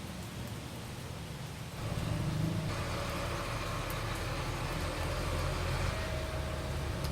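A machine running steadily with a low motor hum, growing louder about two seconds in.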